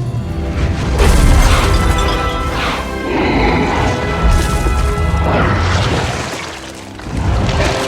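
Monster-film destruction sound effects: repeated crashes and booms over a deep rumble, with film music behind. Sudden hits come about a second in and about four seconds in.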